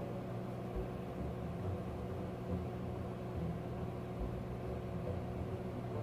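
Microwave oven running with a steady hum, a faint steady tone riding above it.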